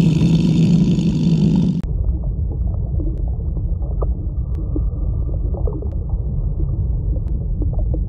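A louder low rumble for about two seconds, then a steady, muffled underwater rumble from an aquarium tank, with scattered faint clicks.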